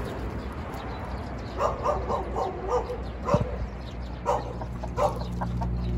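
A dog calling in short, pitched yelps: a quick run of five or six about a second and a half in, then single calls spaced about a second apart.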